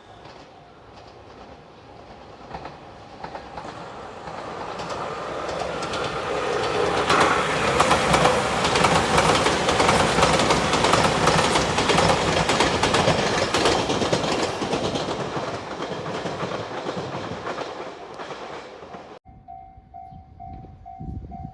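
Electric limited express train passing over a level crossing at speed. It grows from a distant rumble to a loud rush with wheels clacking over rail joints, then fades. Near the end, after a sudden change, a level crossing warning bell rings steadily, two to three dings a second.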